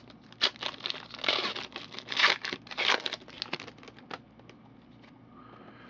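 2008 Upper Deck Spectrum baseball cards being handled and flipped through by hand: a run of quick papery rustles and slides, several a second. The rustling dies down about four seconds in.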